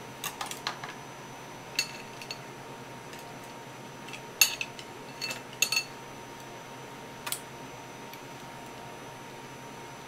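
Metal chopsticks clinking and tapping against a ceramic plate and crab shell: a scattering of sharp clinks with a brief ring, the loudest about four and a half seconds in.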